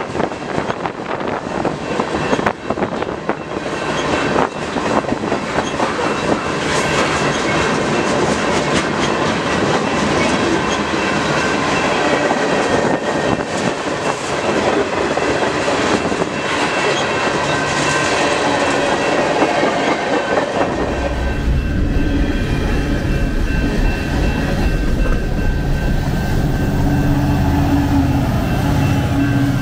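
Freight cars rolling past on steel rails, wheels clicking rapidly over the joints with a thin, high steady squeal above the rumble. About 21 s in it changes abruptly to a Canadian National diesel locomotive passing close by, its engine a heavy, steady low rumble.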